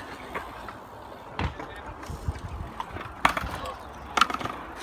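BMX bike being ridden on hard ground: tyre rolling noise with several sharp knocks, the strongest about a second and a half in and around three and four seconds.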